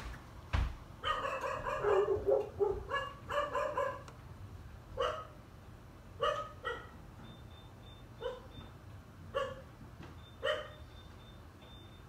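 A dog barking repeatedly: a quick run of barks in the first few seconds, then single barks about once a second. A faint, thin, high beep comes and goes in the second half.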